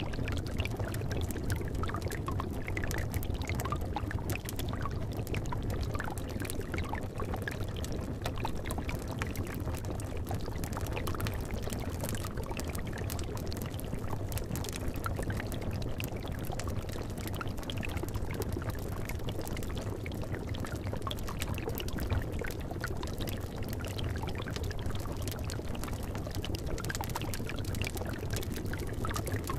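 Bubbling cauldron: a steady, continuous run of small liquid pops and gurgles over a low, even rumble.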